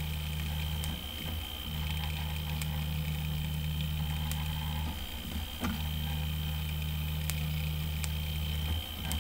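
Original Prusa i3 3D printer printing in nylon: its stepper motors hum in long steady passes that break off briefly about a second in, around five seconds in and near the end, under a steady high whine. Scattered small cracks are heard as moisture in the nylon boils off in the hot nozzle, a sign that the filament is still not dry.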